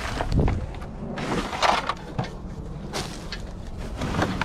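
Rummaging through plastic trash bags and cardboard boxes in a metal dumpster: rustling with scattered knocks and clunks.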